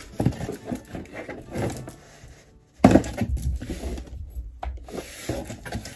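Cardboard shipping box being opened by hand: irregular scraping, tearing and rustling of cardboard and packing tape, with a louder knock about three seconds in.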